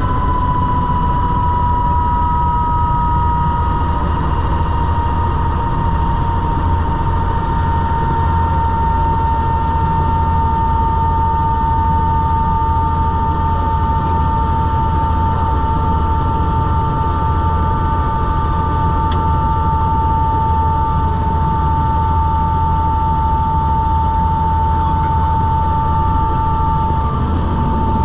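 Tour helicopter in flight: steady, loud rotor and turbine engine noise with a high whine that dips slightly in pitch over the first few seconds, then holds steady.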